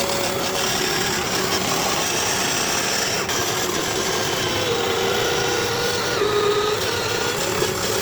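Steady abrasive grinding of a power tool working a part, with a faint wavering whine under the rasping noise.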